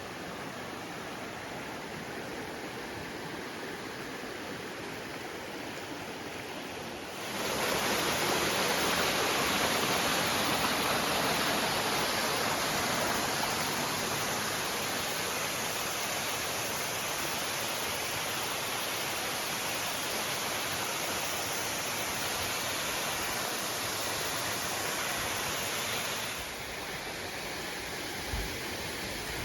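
Waterfall with a steady rush of falling water. The rush jumps sharply louder about seven seconds in and drops back to its earlier level a few seconds before the end.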